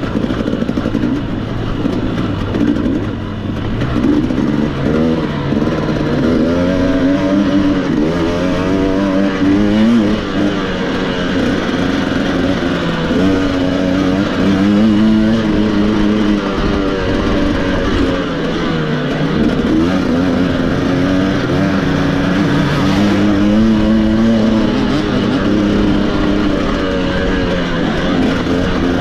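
Racing motorcycle engine under load, its revs climbing and dropping again and again, over steady riding noise.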